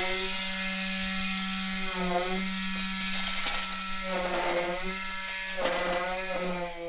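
Concrete poker vibrator running at high speed: a steady high-pitched motor buzz with a hiss over it, its pitch dipping briefly about three times.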